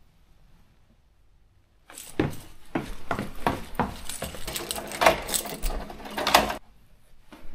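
A quick, irregular run of clicks and clatters from small hard objects being handled. It starts about two seconds in and stops suddenly near the end.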